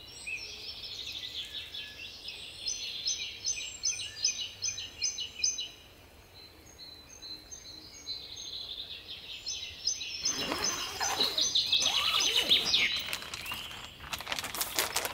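Small songbirds singing: a bright, high chirping phrase repeated about three times a second, then a quieter lull, then a louder, fuller stretch of sound in the last few seconds.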